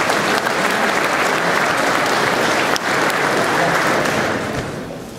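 Audience applauding, a steady clapping that dies away near the end.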